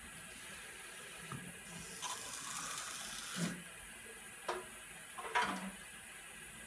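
Liquid dispensed from a bottle-top dispenser through a tube, splashing into a glass filter crucible for a second and a half or so. Two short knocks follow near the end.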